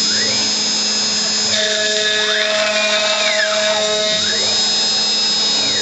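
CNC router spindle running at high speed as its bit cuts a wooden guitar neck. The pitch of the cut rises and falls in long arcs as the tool sweeps along the neck, with a steady high whine underneath.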